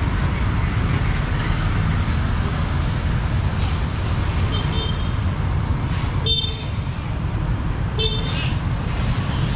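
Steady street traffic rumble, with short high-pitched vehicle horn toots about halfway through and again near the end.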